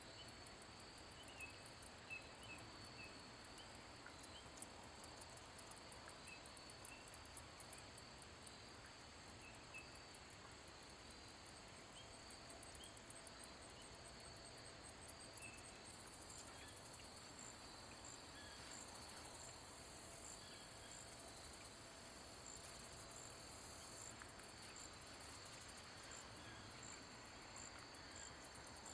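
Faint insect chorus: a steady high trill throughout, with a second, higher pulsing buzz growing stronger about halfway through.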